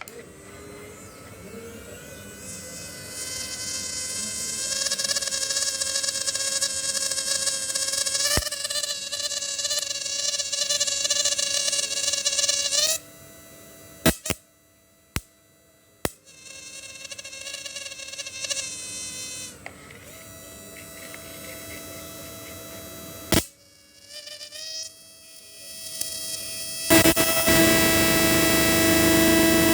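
A 12 V to 1200 V analog electric fishing machine's inverter running, giving a high buzzing whine with many overtones that creeps up in pitch as it settles. It cuts off a little under halfway with a few sharp switch clicks and restarts several times. Near the end it comes back louder, with a hiss over it.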